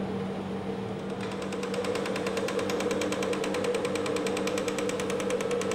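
Chocolate enrobing machine running, with its wheel lifting melted chocolate and its wire-mesh conveyor carrying pieces under the chocolate curtain: a steady machine hum, joined about a second in by a fast, even mechanical clatter.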